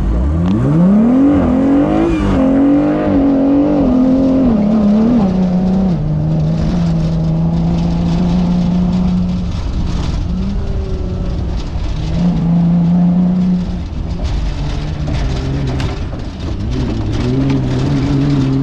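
Off-road race vehicle's engine revving up hard, then running at held revs with several drops and climbs in pitch as the throttle is worked.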